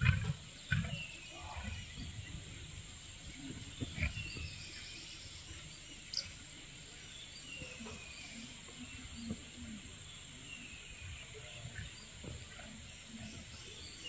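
Lioness feeding on an antelope carcass: a few short low sounds of tearing and chewing, loudest at the start, just under a second in and around four seconds. Birds call with short falling whistled notes scattered through.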